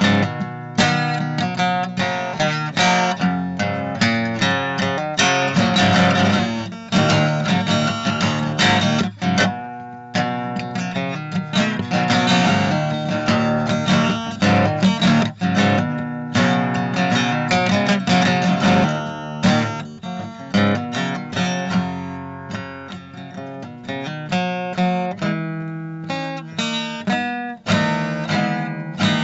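Background music: acoustic guitar being strummed and picked.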